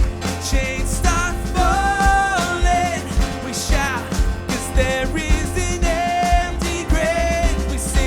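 Live worship band music: a singer holds long notes over a steady drum beat, bass and keyboards.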